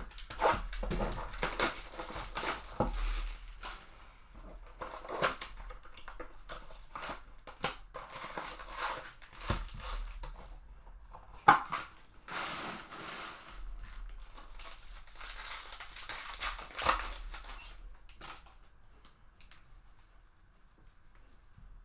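A cardboard blaster box of baseball cards being opened and its foil card packs ripped open, with wrappers crinkling and crackling in irregular bursts.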